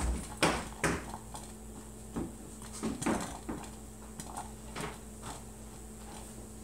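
Silex stovetop coffee percolator perking: irregular plops and clicks as coffee spurts up into the glass top, about two a second at first, then sparser.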